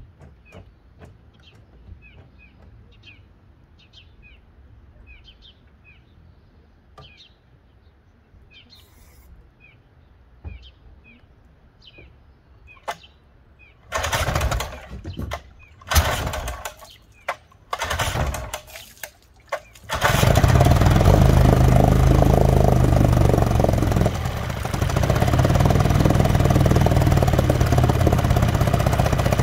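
Old two-stroke outboard motor cranked over in several short bursts that catch and die, then starting about 20 seconds in and running steadily with its lower unit in a trash can, smoking. Small birds chirp repeatedly before the cranking begins.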